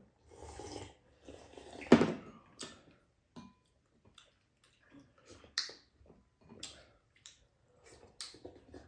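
Slurping and sipping of broth drunk straight from bowls, in several short noisy sips, the loudest about two seconds in, with small clicks and taps of bowls and spoons in between.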